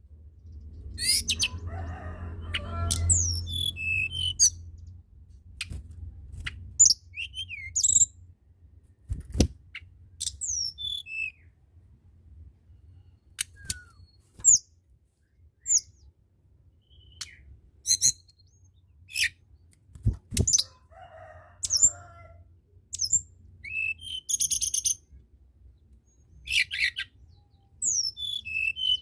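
A tledekan gunung songbird singing short, high whistled phrases, many sweeping downward, repeated with brief pauses between them. A low rumble sounds for the first few seconds, and there are two dull thuds.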